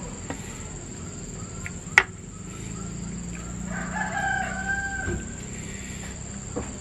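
A rooster crows once, about four seconds in, holding the call for about a second and a half. A single sharp knock about two seconds in is the loudest sound.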